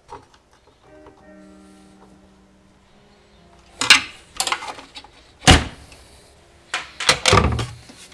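A run of loud knocks and thunks as the plastic recirculation air flap assembly is wrestled loose from the intake: about four seconds in, a single hard knock a little later, and a quick cluster near the end. Faint steady tones underneath before the knocks start.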